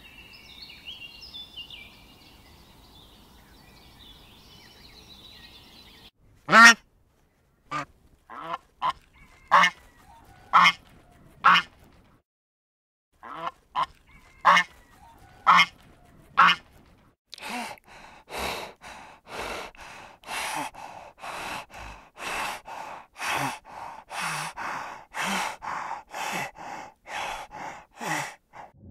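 White domestic geese honking: loud single honks about a second apart, then a quicker run of about two honks a second.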